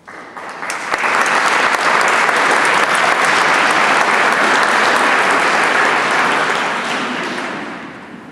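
Audience applauding: dense clapping that swells over the first second, holds steady, and dies away over the last second and a half.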